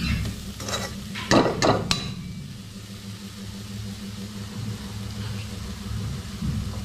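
Metal spoon stirring and scraping in a stainless steel pan, with a few sharp clanks in the first two seconds, over food sizzling in oil and a steady low hum.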